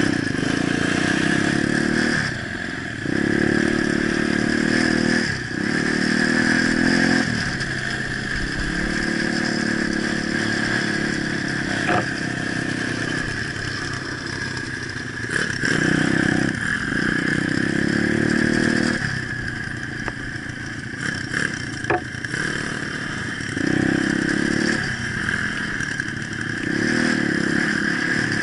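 Pit bike engine running under way, rising in several surges as the throttle opens and dropping back between them, with a few sharp knocks and rattles from riding over a rutted dirt track.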